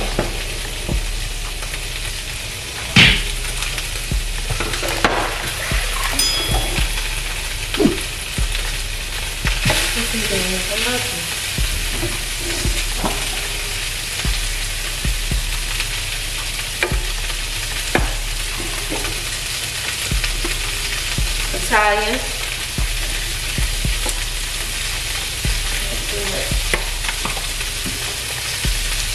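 Food sizzling steadily in a hot frying pan while it is stirred, with scattered sharp clacks of a utensil against the pan, one louder knock about three seconds in.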